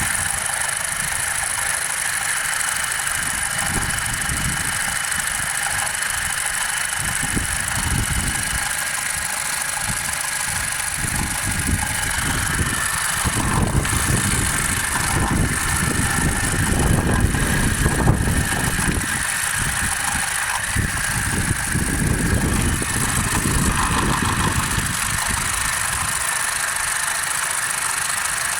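Car engine running with a knock that has come back, which the owner cannot yet trace to a part. The low rumble swells louder for several seconds in the middle.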